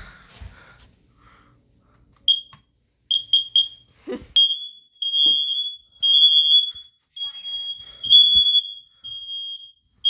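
Household smoke alarm's horn going off, set off by smoke in a test. After about two seconds of quiet, a few short high-pitched chirps start the alarm, followed by a string of longer beeps, each under a second, with short gaps between them. A sharp click comes about four seconds in.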